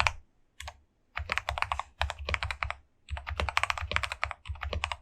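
Typing on a Ciy Tester68 mechanical keyboard fitted with lubed Gateron Brown tactile switches: single keystrokes in the first second, then fast runs of keypresses with short pauses between them.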